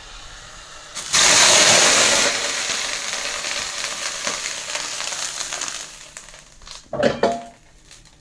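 Hot wok with burnt garlic quenched with water in the sink, hissing suddenly and loudly about a second in and slowly dying away as the steam rises. A few metal knocks of pans near the end.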